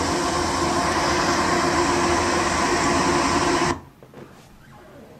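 Loram track machine's diesel engine running with a steady drone as it approaches. The sound cuts off abruptly about three and a half seconds in, leaving only faint hiss.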